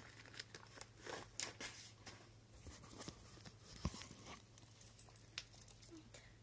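Faint, scattered crunching and small clicks of cats chewing Greenies dry cat treats, with a soft bump about four seconds in.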